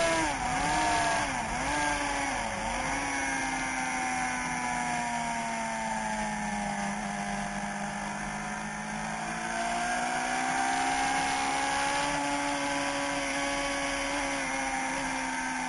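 Sport motorcycle engine heard from an onboard camera at speed. The engine note drops near the start in three quick dips and recoveries, as when braking and shifting down, sinks slowly through a corner, then rises as the bike accelerates out, over a steady rush of wind.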